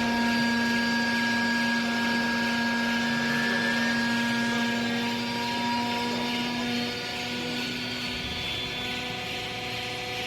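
Hydraulic clothing baler's motor and pump running with a steady hum over a hiss; the main tone weakens about seven seconds in.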